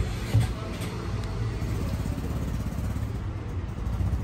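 Outdoor street background: a steady low rumble of traffic, with one short knock about half a second in.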